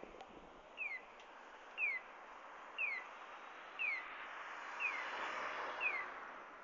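Japanese audible pedestrian crossing signal chirping while the walk light is green: one short falling electronic chirp, repeated evenly about once a second. Road noise swells in the second half as a car passes.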